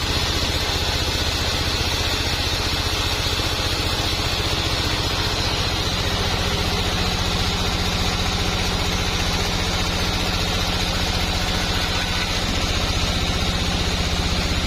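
Sawmill machinery running steadily: an even engine hum with a constant higher whine, no distinct cuts or knocks.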